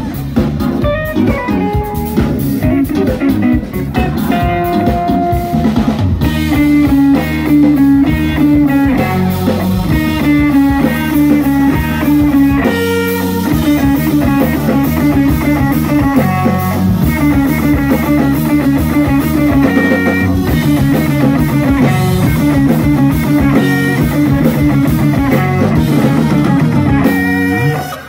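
Live band playing an instrumental jam: an electric guitar line over bass guitar, keyboards and drum kit.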